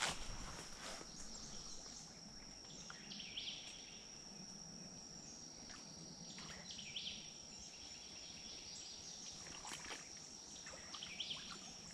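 Quiet woodland ambience: a thin steady high-pitched tone throughout, with a bird calling briefly three times, about every four seconds.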